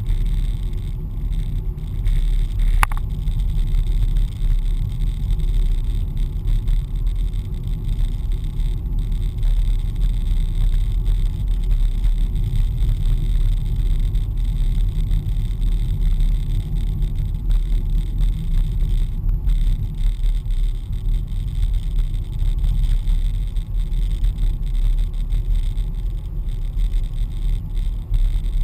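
Car driving along a country lane, heard from inside the cabin: a steady low rumble of engine and tyre road noise. A single short click sounds about three seconds in.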